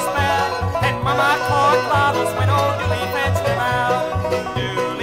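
Background music: a country-style song with a steady bass line, with no words heard in this stretch.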